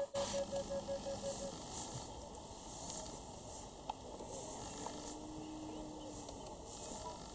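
African elephant giving a low rumble: a faint, steady, low call lasting about two and a half seconds, starting about four seconds in, over bush ambience with a brief high whistle from a bird or insect.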